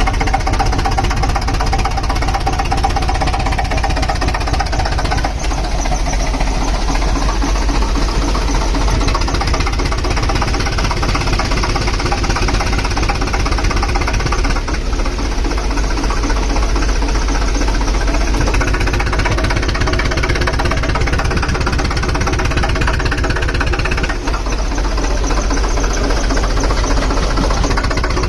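Heavy compressor engine running steadily under load, with a fast, dense knocking pulse over a deep rumble.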